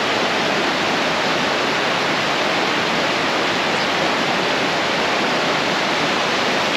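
Tvindefossen waterfall: a loud, unbroken, monotonous rush of falling water that stays even throughout.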